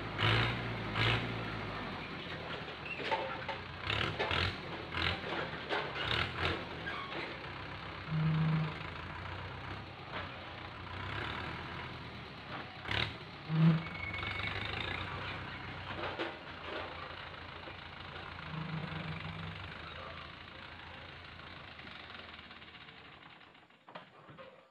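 Tractor engine running steadily as its hydraulic crane grabber loads oil palm fruit bunches into a trailer, with repeated knocks and clatters of the bunches and the grab. A few short, louder hums break in, the loudest with a knock about halfway through.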